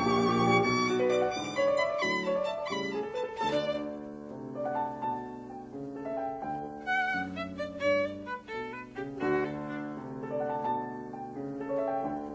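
Instrumental background music: a violin melody of held and moving notes over accompaniment.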